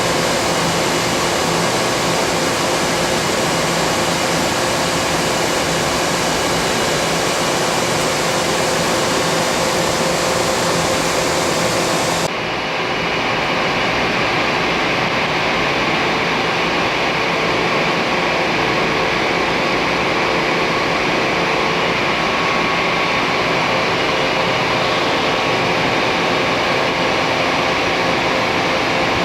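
Steady machinery hum and hiss with a few held tones, like plant ventilation or idling equipment on a factory floor. About twelve seconds in, the high hiss cuts off abruptly and the hum carries on.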